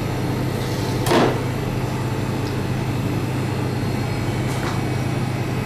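Steady low hum of kitchen machinery, with a brief scrape about a second in.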